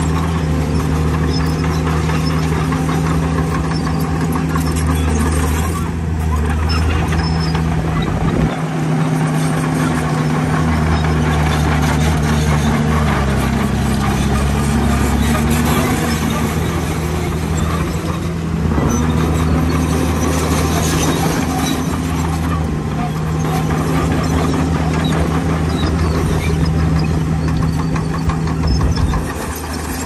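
Heavy diesel earthmoving machinery, a bulldozer working with dump trucks, running continuously under load: a steady low engine note that dips and shifts in pitch a few times, over constant mechanical clatter and rattle.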